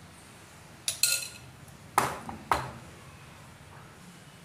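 A metal spoon clinking against a metal cake tin full of batter: a quick cluster of ringing clinks, then two sharper knocks about half a second apart.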